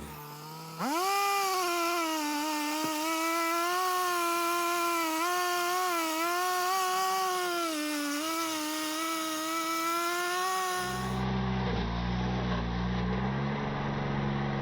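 Gas chainsaw revved up sharply about a second in and held near full throttle, its pitch sagging and recovering as it cuts through firewood. About eleven seconds in it drops to a lower, steadier engine note.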